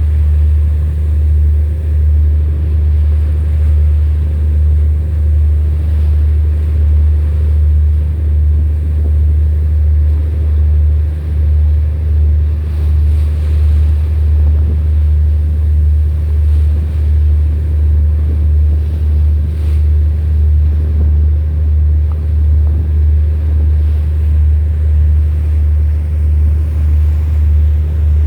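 A boat's engine running steadily: a deep hum that throbs evenly about once a second.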